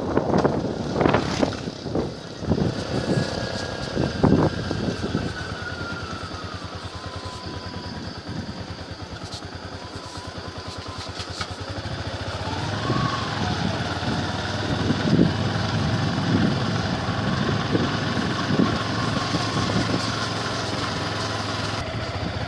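Yamaha R15 motorcycle's single-cylinder engine running while the bike is ridden slowly over a rough road. There are a few knocks in the first four seconds, the engine note falls a few seconds in, and it rises and falls briefly about halfway through.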